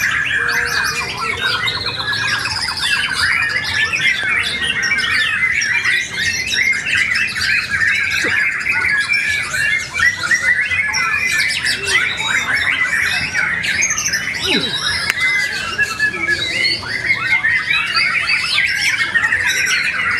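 White-rumped shamas singing without a break, several birds' songs overlapping into a dense chorus of varied whistles, trills and rapid chattering notes.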